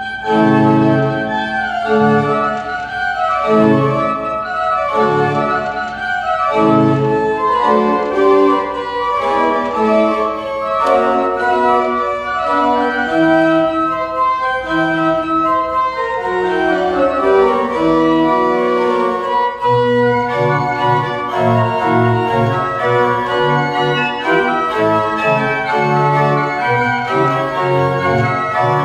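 Nineteenth-century pipe organ playing: at first short, detached chords about once a second, then running lines over held notes, with low bass notes coming in about two-thirds of the way through.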